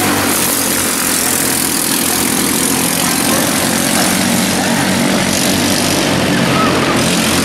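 Several quarter midget race cars' small single-cylinder engines running steadily at racing speed as the pack laps the track.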